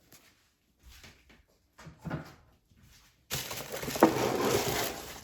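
Packaging being handled: a few short soft rustles, then, a little past three seconds in, about two seconds of loud crinkling and crushing of the wrapping.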